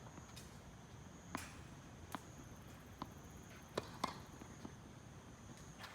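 A tennis ball's sharp knocks, about six at uneven spacing over a few seconds, from the ball on the racket strings and the court. A steady faint high tone lies underneath.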